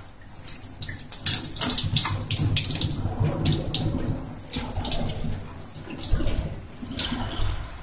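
Water running from a gooseneck tap into a stainless steel scrub sink, splashing irregularly as hands and forearms are rinsed under the stream.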